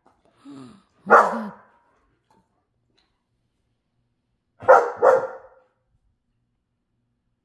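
A dog barking: a soft woof, then one loud bark about a second in, and two quick loud barks close together around the middle.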